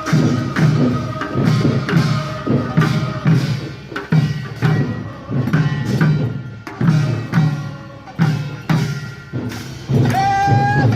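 Rhythmic percussion accompanying a Korean traditional funeral song: sharp strokes about twice a second over a sustained ringing tone, with a voice starting to sing near the end.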